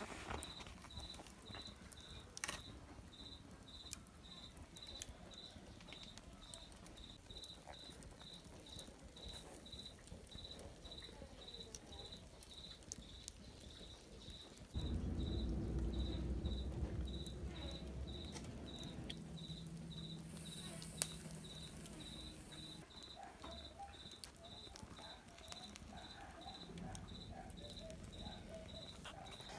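A cricket chirping steadily, about two or three short high chirps a second, with faint crackles from a wood fire of glowing embers. About halfway a low rumble starts suddenly and slowly fades.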